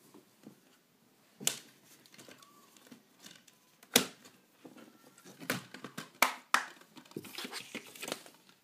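Plastic Blu-ray packaging being handled: scattered sharp plastic clicks and snaps, the loudest about four seconds in. Near the end comes a stretch of crinkling as the plastic shrink-wrap is crumpled.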